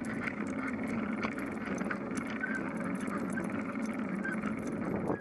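Steady rolling and wind noise of a bicycle ridden over pavement, picked up by a camera mounted on the bike, with scattered small clicks and rattles.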